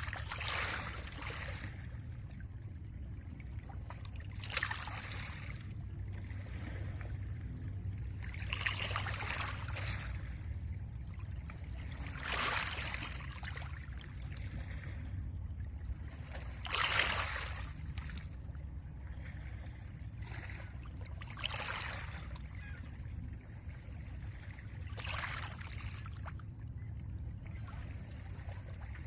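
Small lake waves washing in over a pebble shore, one hissing wash roughly every four seconds, over a steady low rumble.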